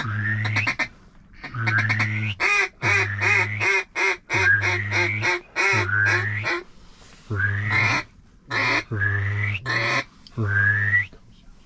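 A duck call blown in a series of quacks: two long drawn notes, then a quick run of short quacks, about three a second, then more long notes, each note rising slightly in pitch.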